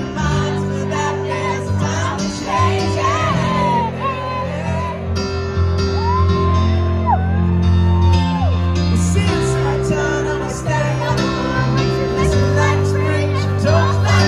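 Live pop-rock band playing, with bass, keyboards and electric guitar under a male lead vocal, and some whoops and shouts from the audience.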